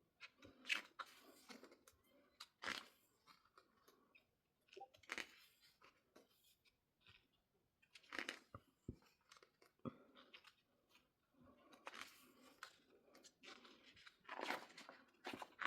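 Paper photo book pages being turned and handled: soft, scattered rustles and light taps of glossy paper, a few every couple of seconds.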